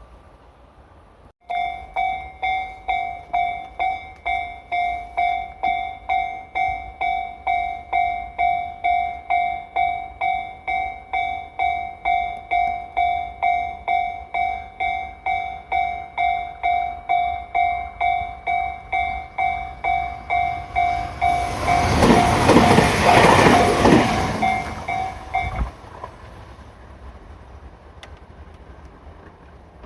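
Japanese railroad crossing warning bell starts suddenly about a second and a half in and rings steadily at about two strokes a second. Near the end a Tobu Skytree Line train passes through the crossing for about four seconds, the loudest part, and the bell stops shortly after it has gone.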